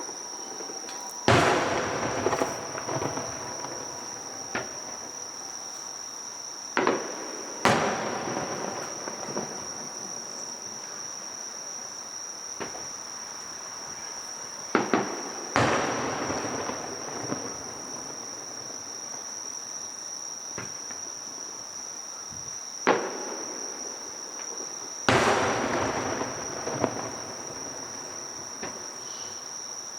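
Aerial firework shells bursting every several seconds: four big bangs, each trailing off over a second or two, with a few shorter single bangs between them. A steady high insect chirring runs underneath.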